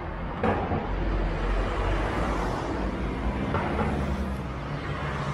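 City street traffic: a steady low rumble of passing vehicles, with a sharp knock about half a second in.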